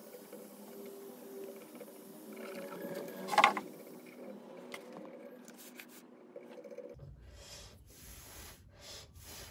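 Faint handling sounds of a hand tool touching a circuit board, with one sharp click about three and a half seconds in and a few lighter ticks after it. A low rumble starts abruptly about seven seconds in.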